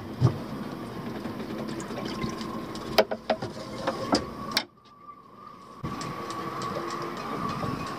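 Clicks and knocks of hands working the electric outboard's mounting gear in the motor well, over a steady background hum. The sound cuts out for about a second a little past the middle, then the hum returns.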